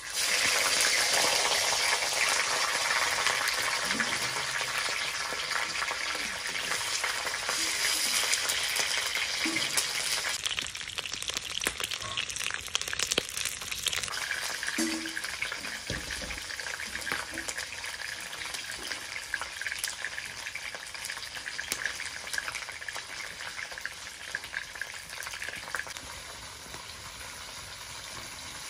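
Pieces of fish frying in hot oil in a wok: a loud sizzle that breaks out suddenly as they go in, then slowly settles into a quieter, steady frying.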